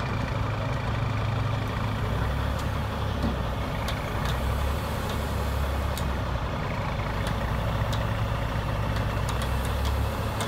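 Heavy diesel engines of the tow trucks running steadily as a low drone while their booms and winches lift a rolled-over cement truck back onto its wheels. A few faint clicks are scattered through it.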